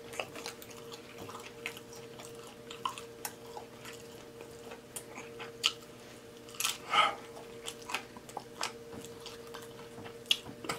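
Close-miked chewing and wet mouth smacking of a fried pork and vegetable wonton, with scattered small clicks and a louder smack about seven seconds in as fingers are licked.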